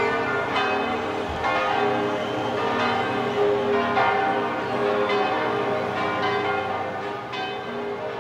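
Bells ringing: a run of struck notes, a new strike about every second, each note ringing on under the next.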